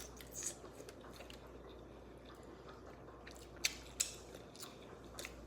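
Close-up eating sounds from a seafood boil: quiet chewing with a few short, sharp clicks and cracks of shells being handled, two of them close together past the middle.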